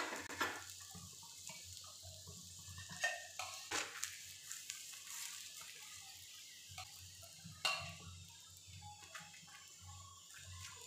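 Paratha sizzling faintly on a hot tawa while a metal spoon spreads ghee over its top, with a few light clicks and scrapes of the spoon against the bread and pan.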